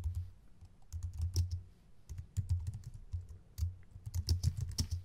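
Computer keyboard being typed on, the keystrokes coming in short runs with brief pauses between them.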